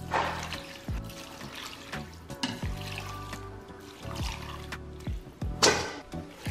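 Background music with a steady drum beat over water being poured from a measuring cup into a pot of rice and meat. Near the end comes a louder, short splash of water as a bunch of herbs is lifted out of a bowl of rinsing water.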